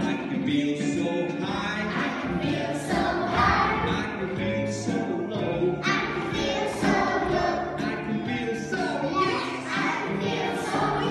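A group of young children singing a song together to musical accompaniment, the song going on without a break.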